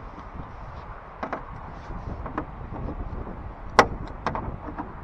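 Channel-lock pliers clicking and scraping on a small licence-plate screw as they grip and twist it, a handful of sharp clicks with the loudest about four seconds in.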